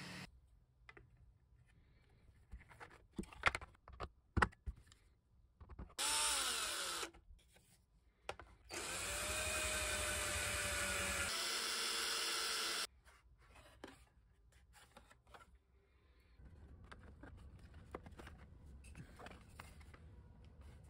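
Ryobi cordless drill driving a screw into a 3D-printed plastic part. There is a short burst about six seconds in whose pitch falls as it winds down, then a steady run of about four seconds that cuts off abruptly. Before the drill come a few sharp knocks of parts being handled, and after it there is quieter handling.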